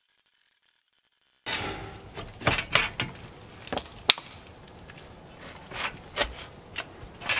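Near silence for about a second and a half, then a string of sharp metal knocks and clanks: the seized, rusted-in front wheel hub of a 2012 Chevrolet Impala being knocked loose and worked by hand as it breaks apart.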